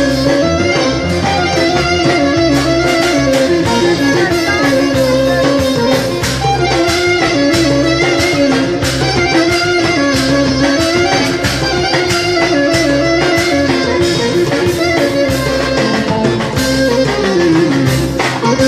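Live Greek folk music from clarinet, bouzouki and percussion: a melody slides up and down between notes over plucked bouzouki and a steady percussion beat, with a falling slide near the end.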